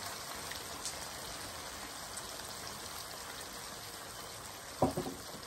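Minced meat and sauce sizzling steadily in a frying pan, an even frying hiss, with a short knock near the end.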